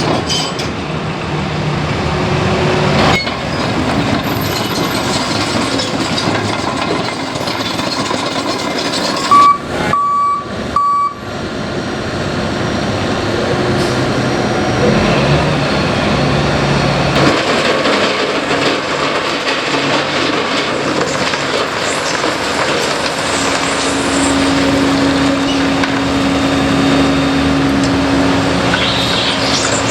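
Diesel engines of heavy earthmoving machinery running at a road-construction site, with a backup alarm beeping three times about ten seconds in. Later a steadier engine hum comes up under the rumble.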